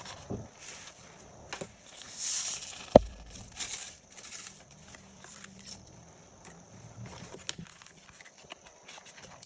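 Loose coloured sand being tipped and tapped off a sand-painting sheet: a short hiss of sliding sand, one sharp tap about three seconds in, a second brief hiss just after, then light paper rustles and clicks.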